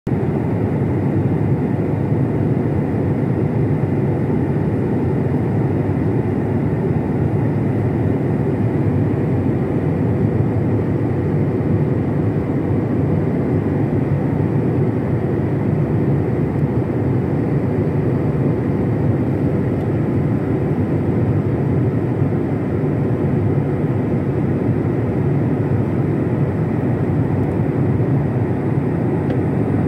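Steady roar of engines and airflow inside a jet airliner's passenger cabin in flight at altitude, with a faint constant tone running above the rumble.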